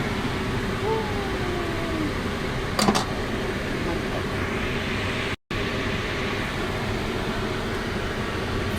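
Steady fan-like rushing hum, with a single sharp click about three seconds in.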